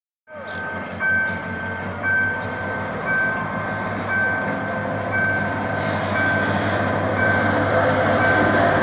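GM GT22CW-2 diesel locomotive running as it pulls a passenger train slowly through a level crossing, its engine rumble growing slowly louder as it draws alongside. Over it, the crossing's warning signal beeps about once a second.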